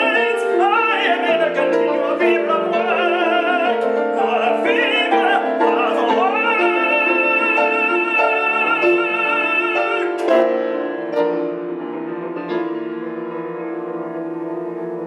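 Operatic tenor singing a held, sweeping line with wide vibrato over grand piano accompaniment in a classical art song. About ten seconds in the voice stops and the piano carries on alone with sustained chords, a little softer.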